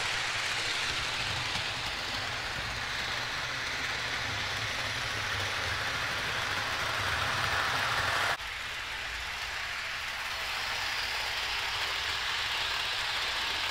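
Bachmann-built Hawthorne Village Atlanta Braves model train running around a loop of plastic-roadbed track: a steady hiss of the small electric motor and wheels on the rails. It becomes suddenly quieter about eight seconds in and then carries on steadily.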